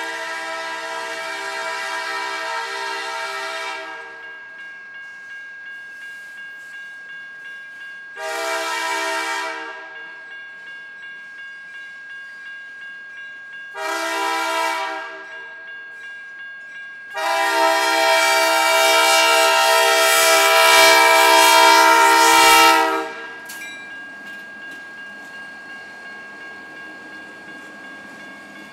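Diesel locomotive's multi-chime air horn sounding four blasts: a long one, two short ones, and a final long blast that is the loudest. This is a grade-crossing warning. Between the blasts the train rolls steadily, with wheels clicking over rail joints about twice a second.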